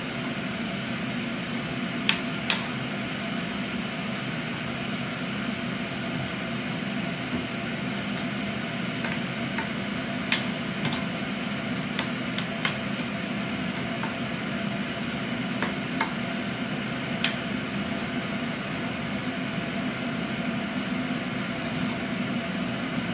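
Eggplant and blended tomato sizzling in a nonstick frying pan as they are stirred with a spatula, with a few short clicks of the spatula knocking against the pan.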